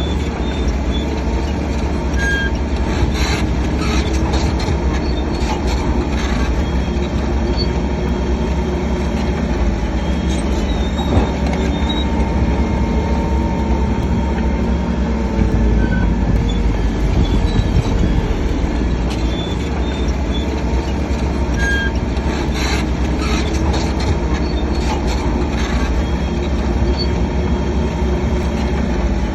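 SHANTUI DH7C3 crawler bulldozer working: its diesel engine runs steadily under load while the steel tracks clank and give short, high squeals.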